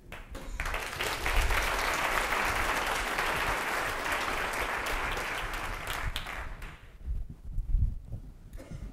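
Audience applauding, starting about half a second in and dying away after about six seconds, followed by faint low thumps.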